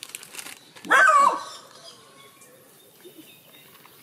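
A small dog gives one short, high-pitched whine about a second in, while her infected eye is being wiped.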